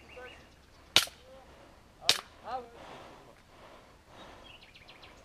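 Two sharp airsoft gun shots about a second apart. Birds chirp faintly around them.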